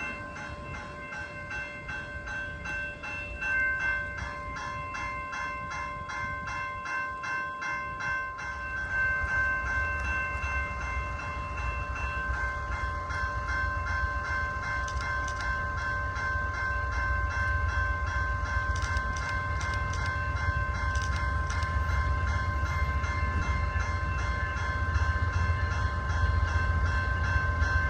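Approaching freight train led by a single locomotive. Its low rumble comes in about nine seconds in and grows steadily louder, under several steady high ringing tones that pulse regularly at first.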